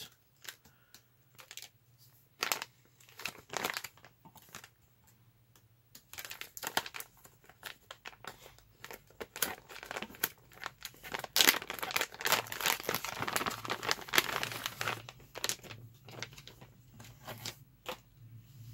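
Plastic packaging bag being pulled at, torn open and handled: irregular crinkling and rustling, sparse at first, busiest and loudest about halfway through.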